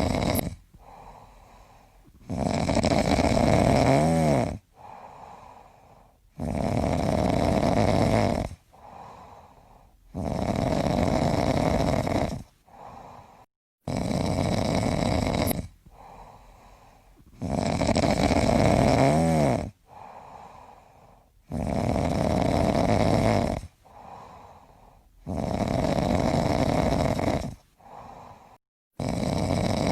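A person snoring: loud snores about two seconds long, one every four seconds or so, with softer breaths between them.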